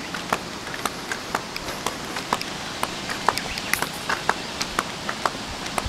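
Footsteps of a person walking on paved asphalt: a quick, irregular run of sharp clicking steps over a steady background hiss.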